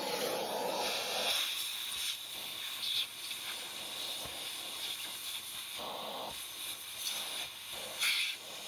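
Vacuum cleaner running with its crevice tool held against an AirPod's speaker mesh, sucking out window-cleaner liquid: a steady hissing rush of air with a few brief louder surges.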